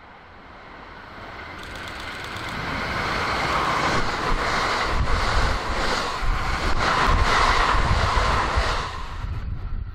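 A JR West KiHa 189 series diesel railcar train approaches and passes close by. The sound swells over the first few seconds and is loudest while the cars go by, with a repeating beat. It drops off sharply near the end as the train clears.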